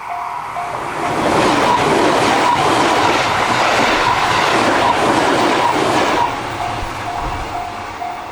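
Japanese level-crossing warning bell dinging about twice a second while a train runs past. The train's loud running noise rises about a second in and drops away about six seconds in, after which the bell is heard alone again.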